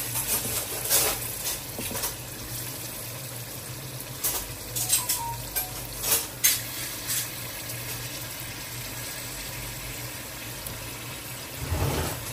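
Curry cooking in a pot, sizzling and bubbling over a steady low hum, with several sharp knocks and clinks: about a second in, a cluster about four to seven seconds in, and one near the end.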